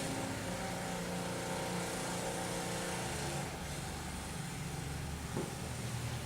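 Electric garage door opener running as the auto panel-lift door moves: a steady motor hum whose upper tones fade about three and a half seconds in.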